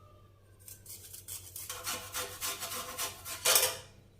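Fresh ginger root being grated on a grater: quick rasping strokes, about four or five a second, starting about a second in and loudest near the end.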